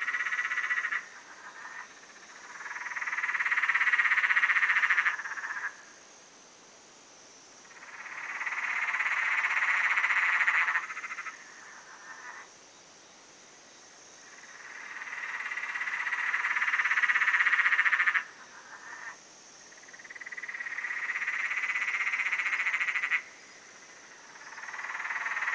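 Repeated long, rapidly pulsed trilling animal calls. Each one swells up over a couple of seconds and then stops abruptly, about every six seconds, with fainter short trills between them and a faint steady high hiss underneath.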